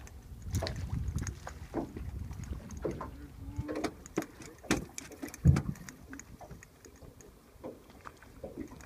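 Scattered knocks, clicks and thumps of people moving about and handling rods on a fishing boat's deck, over a low rumble of wind on the microphone; the loudest is a heavy thump about five and a half seconds in.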